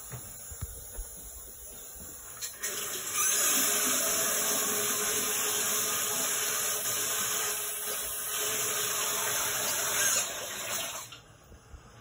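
Rushing water in the building's plumbing, from upstairs. It starts about two and a half seconds in, swells a moment later, runs steadily for about eight seconds and then stops abruptly.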